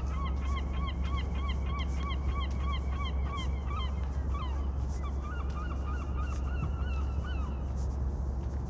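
Geese honking: a run of short, repeated calls, about three a second, that breaks off about halfway through and starts again, over a steady low rumble.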